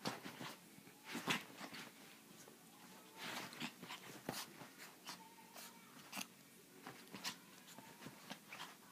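Chihuahua play-wrestling with a person's hand on a bed: rustling of the bedding and a few short, scattered scuffles.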